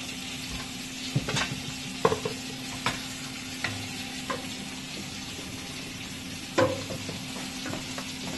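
Wooden spoon stirring in a stainless steel stockpot, knocking against the pot's sides at irregular intervals, the loudest knocks about two seconds in and late on. A steady hiss and a low hum run underneath.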